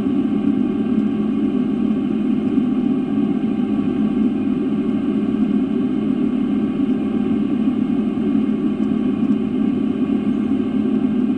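Steady cabin noise of a Boeing 777-300 airliner in flight: an even, unbroken rumble of engines and airflow, strongest in the low-mid range.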